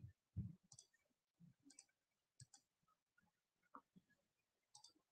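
Near silence broken by faint, irregular clicks, about eight of them, some coming in quick pairs.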